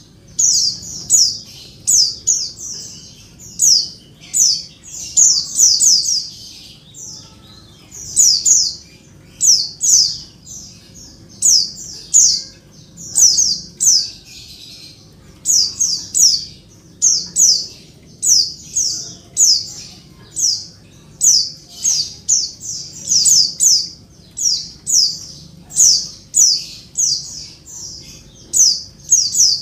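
Female white-eye (pleci) calling: short, high chips that slide downward, in quick clusters of two or three, repeated steadily about once or twice a second. This is the female call used to provoke male pleci into answering and singing.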